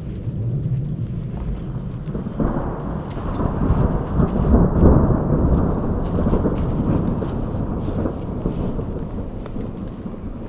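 A long roll of thunder: a low rumble swells about two seconds in, is loudest around the middle and slowly dies away. Steady rain falls throughout, with scattered drops ticking.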